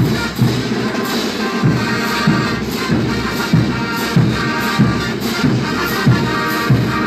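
Banda music: a brass band playing over a steady low beat of bass pulses and drum, with held brass notes above.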